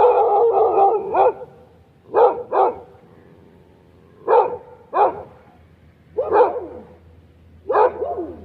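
A dog barking repeatedly in short groups of one to three barks, about every two seconds, with a longer run of barks at the start.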